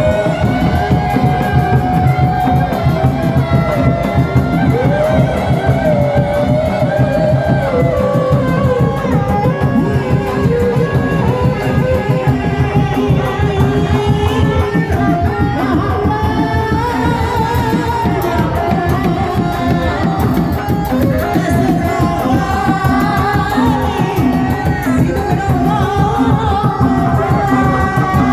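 Kuda lumping music: a singer's voice carrying a wavering melody over fast, steady drumming.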